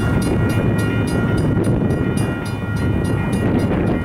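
Railroad crossing bell ringing in quick, even strikes, about four a second, over a low rumble.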